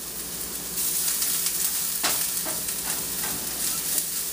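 Chopped green onion and garlic sizzling in a stainless steel skillet as they sauté, the sizzle growing louder about a second in. A few light knocks of a utensil come in the middle.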